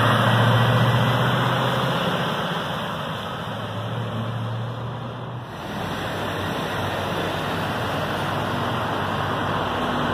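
Diesel engine of an articulated lorry driving past, a steady low engine note that fades over the first two seconds. After an abrupt change about halfway, the steady rumble of lorry engines in a truck park as a Scania tractor unit pulls out of its bay.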